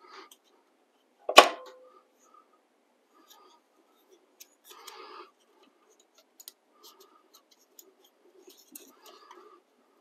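Metal handling noises as the drive pulley is worked off the planer's cutterhead shaft. There is one sharp metallic clank with a short ring about a second and a half in, then faint scattered clicks and rustling.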